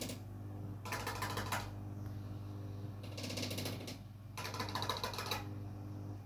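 Cockatiel tapping its beak rapidly on a hard surface in three quick runs of taps, about a second in, past three seconds, and again after four seconds, over a steady low hum.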